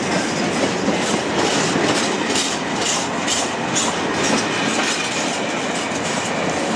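Intermodal container freight wagons rolling past close by, their wheels clattering steadily on the rails. A run of sharper clacks comes between about two and four seconds in as wheelsets cross rail joints.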